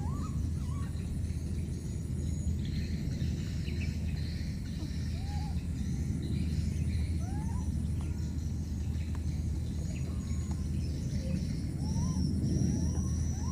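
Outdoor ambience with a steady low rumble, over which short rising-and-falling chirping calls sound now and then, several in quick succession near the end, alongside fainter higher chirps.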